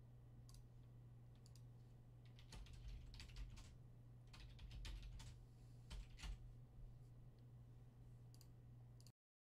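Faint, scattered clicks of typing on a computer keyboard over a steady low hum; all sound cuts out abruptly near the end.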